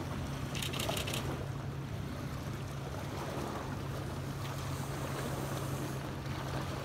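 Steady wind noise on the microphone over a constant low hum, with a few faint clicks about a second in.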